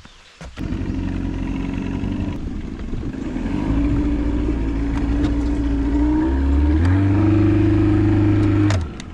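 An engine running under load, getting louder a few seconds in and stepping up in pitch about two-thirds of the way through, then cutting off suddenly near the end.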